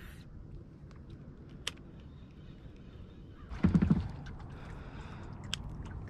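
Knocks and clicks on a plastic kayak over a low wash of water: one sharp click, then a brief cluster of loud low knocks a little past halfway, then a few light clicks.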